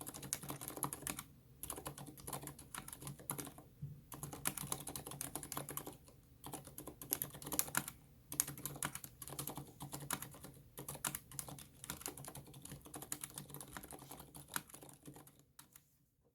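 Mechanical keyboard with Aliaz 60g silent tactile switches and SA-profile ABS keycaps being typed on quickly and continuously, with a few short pauses, the typing dying away near the end.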